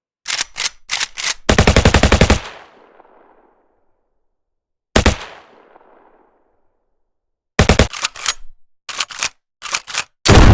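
Gunfire sound effects. A few single shots are followed by a short burst of rapid automatic fire about a second and a half in. A lone shot comes around five seconds, then quick groups of shots later on, and a heavy shot at the very end; each burst dies away in a tail.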